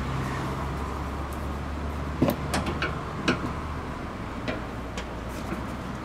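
A ratchet on a long extension being worked on a steering gear mounting bolt to snug it down, giving a handful of sharp, irregularly spaced metallic clicks and knocks over a low background hum.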